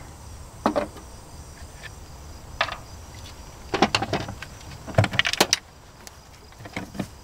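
Scattered metallic clicks and knocks as a cable connector is worked loose from the terminal of an aircraft battery, in small clusters with pauses between them.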